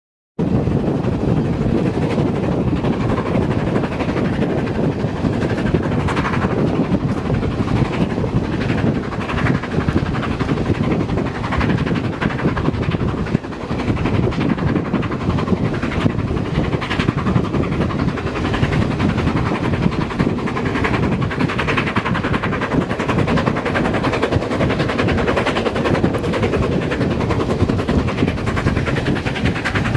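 LMS Princess Coronation Class Pacific 6233 Duchess of Sutherland working hard up a steep bank, heard from an open carriage window: a rapid run of exhaust beats over the train's wheel and rail noise and wind, loud and steady throughout.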